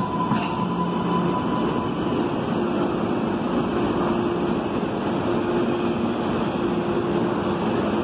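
MBTA Green Line light-rail train pulling out along the far track of an underground station, a steady rumble. A faint high tone fades out early on, and a steady humming tone comes in about two and a half seconds in.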